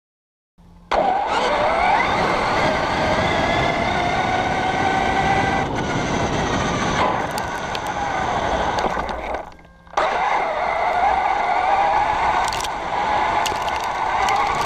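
Electric RC monster truck with a 6S brushless motor driven at full speed on gravel: the motor's whine rises and falls with the throttle over the steady crunch and rattle of tyres on loose stones, with a few sharp stone ticks. The sound starts about half a second in and dips briefly about ten seconds in.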